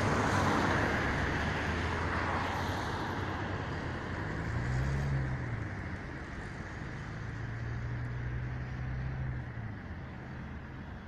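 Outdoor city ambience: a steady rush of traffic and wind noise, with the low hum of passing vehicle engines swelling about halfway through and again later.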